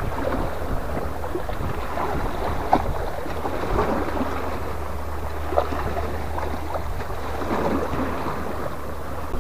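Wind rumbling on the microphone over small sea waves washing against shoreline rocks, with a few faint ticks.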